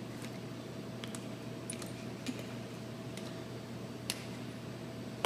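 A few short, sharp clicks and taps from the drill team, about one a second, over a steady hum; the sharpest click comes at the very end.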